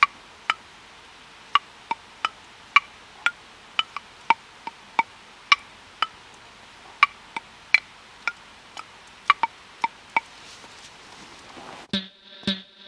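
Short woody clicks at an uneven pace, about two or three a second, from working a small sampler while cutting samples. Near the end a plucked-string bass loop with a distorted edge starts playing.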